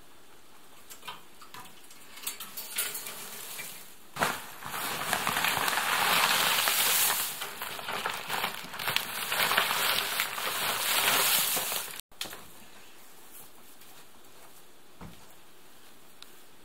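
Dry hay rustling and crackling loudly as it is handled and packed into a wire hay rack, starting about four seconds in and cutting off suddenly about twelve seconds in. A few soft clicks come before it.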